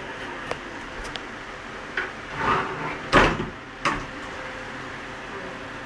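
Folding wooden wardrobe doors being pushed shut: a short rubbing slide, then a sharp knock about three seconds in and a second knock just before four seconds as the doors close.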